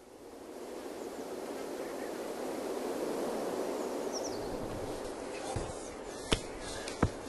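A steady rushing hiss swells in over the first second and holds for several seconds. Then come a few sharp knocks of hiking boots stepping on rock near the end.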